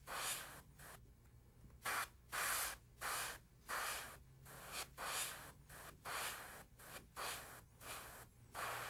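Airbrush spraying paint in short hissing bursts, about two a second, as the trigger is pressed and let go, with a pause of about a second near the start.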